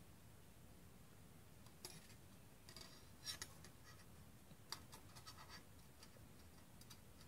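Faint clicks and light scratching of thin Metal Earth steel model parts being handled and bent with a small metal tool, coming in a few short clusters of ticks.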